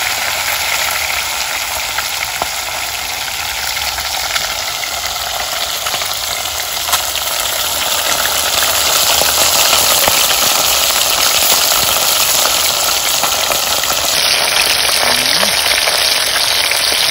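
Whole tilapia frying in hot oil in a pot, a steady sizzle with a few sharp pops, growing a little louder about halfway through.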